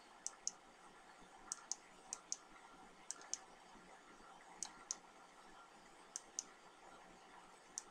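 Computer mouse button clicked about seven times at irregular intervals, each click a quick double tick of press and release, over faint room hiss.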